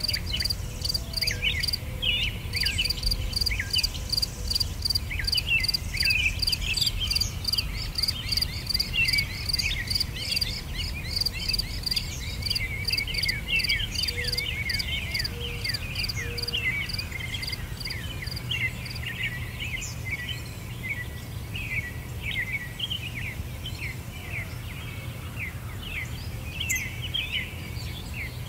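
Nature ambience: many small birds chirping, with a high insect chirp pulsing evenly about four times a second that stops about two-thirds of the way through, over a steady low rumble.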